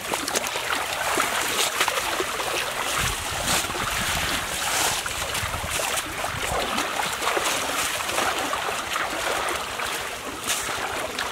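Shallow water sloshing and splashing as several people wade and haul a fishing net through it, with many small splashes. A low rumble of wind on the microphone runs for a few seconds in the middle.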